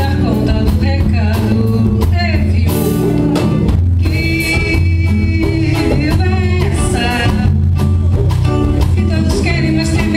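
Live band music with a singing voice, over a steady beat and bass line.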